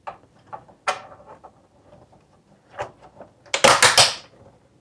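Clear plastic lens of a GM truck instrument cluster being set onto the cluster housing: a few light plastic clicks, then a burst of loud plastic clacks and clatter about three and a half seconds in as it is pressed down into place.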